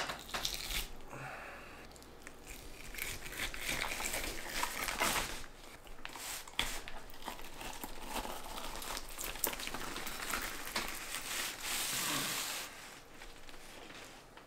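Newspaper crinkling and rustling under hands skinning a burbot, with wet tearing as the slimy skin is pulled back off the body with pliers. Irregular and uneven, dying down near the end.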